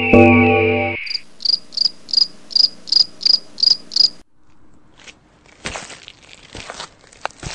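Cricket-like insect chirping, about three high chirps a second for three seconds, stopping abruptly. Before it, about a second of music ends; after a short lull come irregular crunching rustles.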